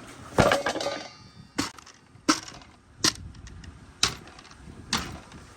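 Marbles clacking against a handmade marble run: six sharp knocks roughly a second apart, the first with a short ringing tail.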